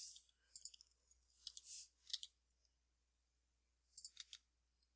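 Faint clicks of a computer keyboard and mouse, in small clusters of two or three at about half a second, one and a half, two and four seconds in, over near silence.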